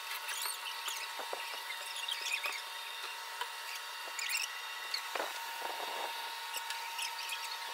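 Short, high-pitched chirping squeaks come and go over a faint steady whine, with a few soft knocks about five to six seconds in.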